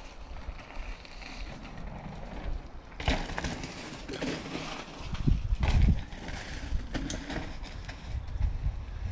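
Mountain bike ridden over a dirt trail: tyres rolling and the bike knocking over rough ground, heaviest about five to six seconds in.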